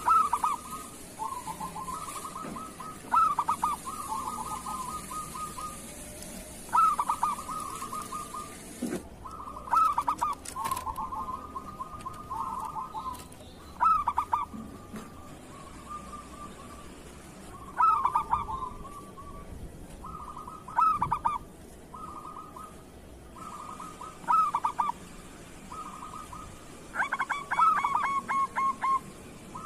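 Zebra dove (perkutut) cooing: repeated phrases of rapid stuttering notes, each opening with a louder burst and following every few seconds.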